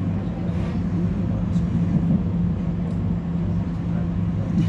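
Interior running noise of a Z 50000 electric multiple unit under way: a steady low hum over the rumble of the wheels on the track, with a few faint clicks.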